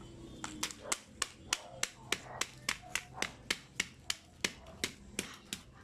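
A steady run of sharp taps or knocks, evenly spaced at about three to four a second.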